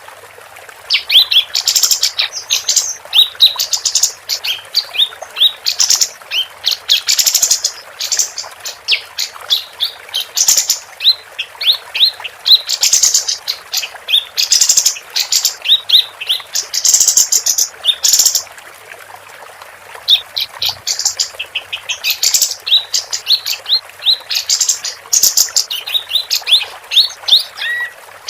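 Female kapas tembak singing busily: rapid runs of short, high chirps and upswept whistled notes, breaking off briefly near the start and again about two-thirds of the way through.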